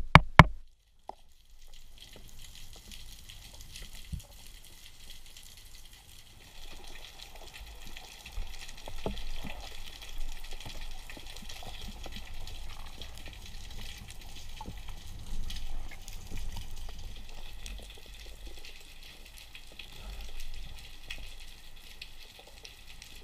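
Underwater ambience heard through a camera's waterproof housing: a steady hiss with faint scattered clicks over a low rumble of water movement that swells and fades.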